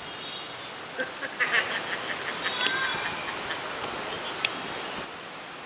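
Busy city street traffic with a steady road noise, broken by several short, high-pitched horn beeps from about a second in to about three seconds in, and a single sharp click later on.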